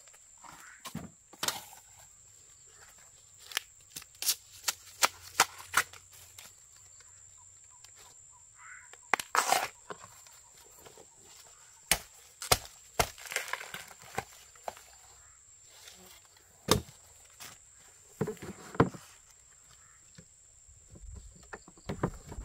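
A knife chopping and husking fresh bamboo shoots: irregular sharp knocks of the blade on the shoots, with short tearing rustles as the tough husk sheaths are split and stripped off.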